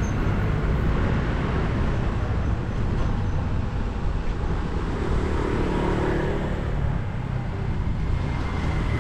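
Steady passing road traffic: a continuous din of car and motorbike engines and tyres, heaviest in the low range.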